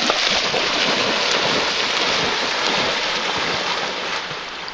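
Chocolate Labrador retriever charging and swimming through creek water, a steady rush of splashing that eases off near the end.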